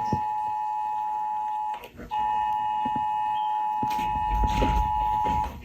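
Emergency Alert System attention signal: a steady two-tone electronic beep that breaks off briefly about two seconds in and again near the end.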